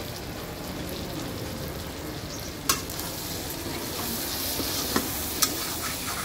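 Chicken pieces sizzling as they fry in a wok, stirred with a metal spatula that scrapes through the meat. The spatula clanks sharply against the pan a little under three seconds in and twice more near the end.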